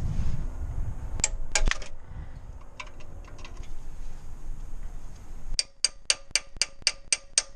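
Socket ratchet clicking on metal, a few scattered clinks about a second in, then an even run of sharp clicks about five a second near the end, as the exhaust manifold heat shield bolts are worked loose.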